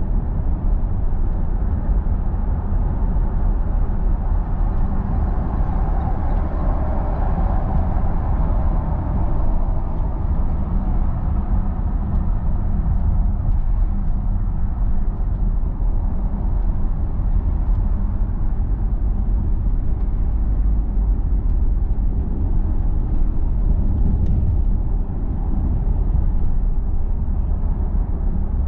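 A car driving steadily, heard from inside the cabin: a constant low rumble of engine and tyre noise on the road.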